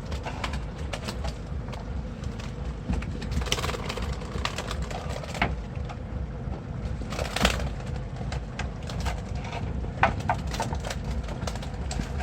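A boat's engine running with a steady low rumble under many scattered knocks and clicks, the loudest about halfway through and again near the end.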